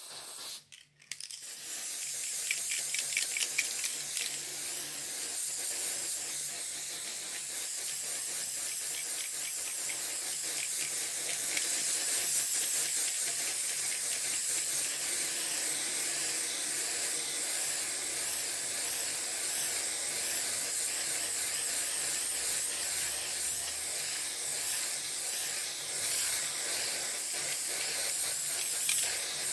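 Aerosol spray paint can spraying: a short spurt, then a continuous hiss from about a second in that holds steady.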